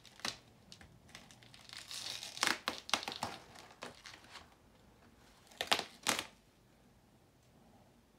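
Clear plastic wrap and foam netting crinkling and tearing as small hands pull them off a wrapped young coconut. The crackling comes in bursts, with two sharp, loud crinkles about two-thirds of the way through.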